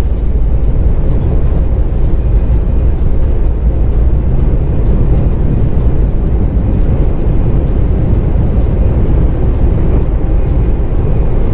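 Airbus A320-family airliner's jet engines at takeoff thrust, heard inside the passenger cabin as a steady, loud noise of engines and rushing air while the jet rolls down the runway and lifts off.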